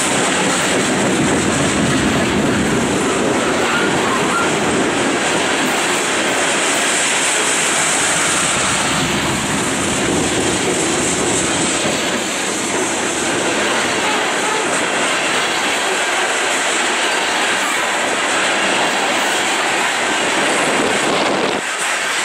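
Loaded coal unit train's steel hopper cars rolling past at close range: a steady rumble and rattle of wheels on the rails.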